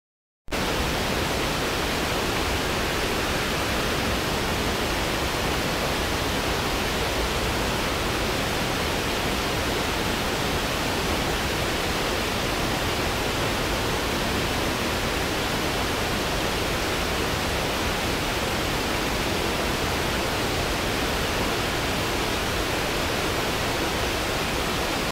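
A shallow stream running over rocks: a steady, even rush of water that starts abruptly about half a second in.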